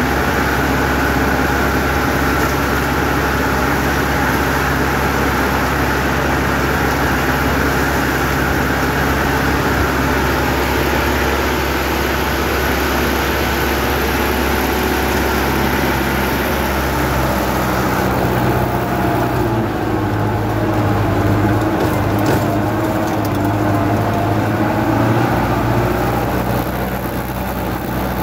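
Sonalika 75 HP tractor's diesel engine running steadily under load while pulling a 4-foot rotavator through the soil. The engine note shifts about two-thirds of the way through.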